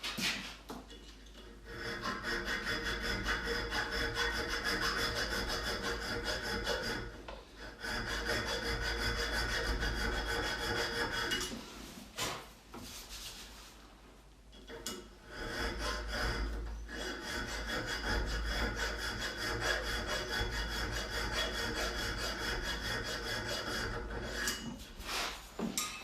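Abrasive shaping of a hand-forged knife: a power sander or grinder runs steadily with the work pressed against it, rasping. It drops out briefly a few times.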